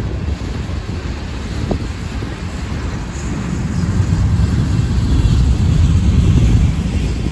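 Freight train of covered hopper cars rolling past: a steady low rumble of steel wheels on rail, swelling louder about halfway through.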